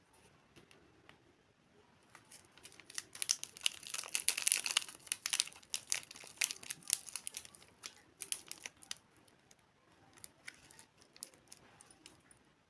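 A candy or snack wrapper crinkling and tearing as it is opened. The crackling is densest a few seconds in, then thins to scattered crackles.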